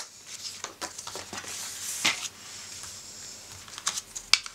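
Paper card and binder being handled on a wooden table: rustling, with a sharp tap about two seconds in and a few quick clicks and taps near the end.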